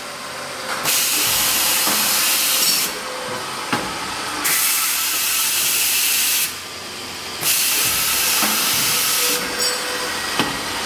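Multi-station automatic tapping machine running its cycle: a loud hiss comes on for about two seconds at a time, three times, with short quieter gaps between. A few sharp clicks are heard, the loudest near the end.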